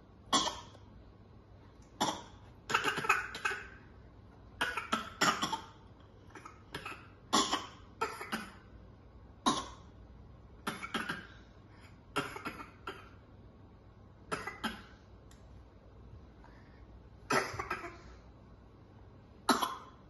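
Toddlers making pretend coughing noises, copying each other: short, sharp coughs, singly and in quick clusters, every second or two with a brief pause near the middle.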